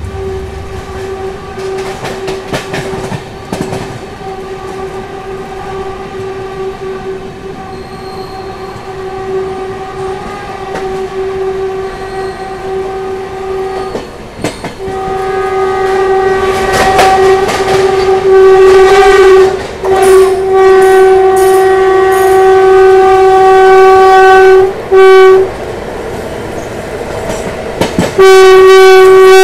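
Electric locomotive air horn sounding long, steady blasts on one pitch, with short breaks, growing much louder in the second half as the oncoming train on the next track closes in. Underneath, the moving train's wheels rumble and clatter over the rail joints.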